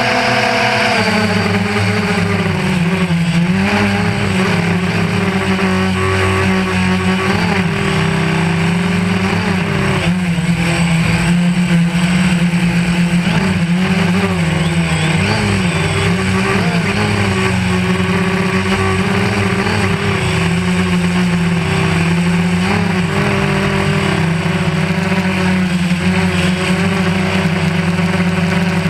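DJI Phantom 1 quadcopter's electric motors and propellers humming steadily, the pitch wavering slightly up and down as the motors correct against gusty wind, over a rushing wind noise.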